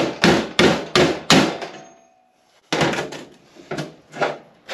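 A hammer striking a 36 mm socket about three times a second, five sharp metal blows, driving the worn pump bushing out of a 47RE/48RE transmission front pump. A couple of seconds in there is a short lull, then a few looser clanks on the steel workbench.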